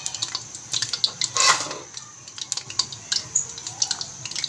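Spinach-and-onion pakora batter deep-frying in hot oil: a steady sizzle full of small crackling pops, with a louder surge of sizzling about a second and a half in as another pakora goes into the oil.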